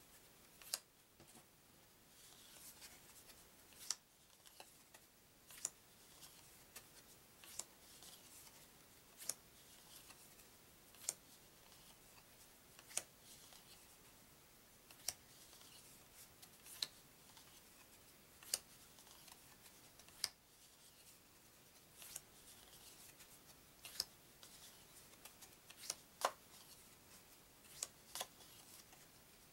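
Paper trivia cards being taken off a stack one at a time, each one a short sharp click or snap of card on card, about every two seconds, with a faint sliding rustle between.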